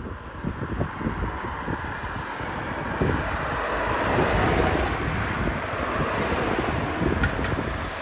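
Wind buffeting the microphone over the noise of road traffic on a busy main road, the traffic swelling louder about three seconds in as a vehicle passes.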